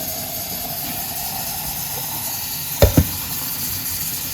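Water running steadily from a kitchen tap into a quart glass jar of lentils, refilling it to rinse them, with two quick knocks a little under three seconds in.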